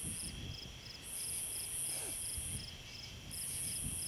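Night insect chorus, crickets: a regular high chirping about three times a second over a steady high trill, with a still higher buzzing trill that switches on and off every couple of seconds.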